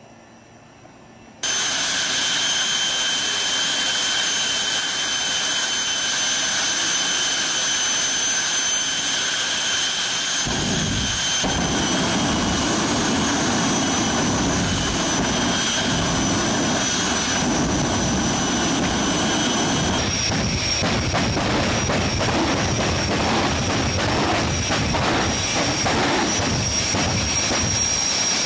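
Jet funny cars' turbine engines running at full blast, starting abruptly after a faint opening: a steady high-pitched turbine whine over a loud rushing jet noise. About ten seconds in a deeper rumble joins as an afterburner is lit.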